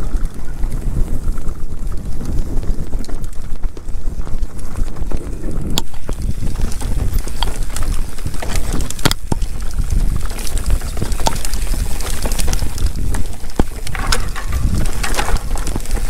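Wind buffeting and rumble on the microphone of an e-mountain bike descending a rough forest trail, with a few sharp knocks and rattles, the loudest about six and nine seconds in. The external microphone has come loose and hangs by its cable.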